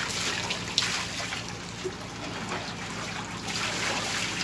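Water poured from a metal pitcher over a wet dog, splashing and trickling down into a plastic kiddie pool of water. A single sharp tap sounds a little under a second in.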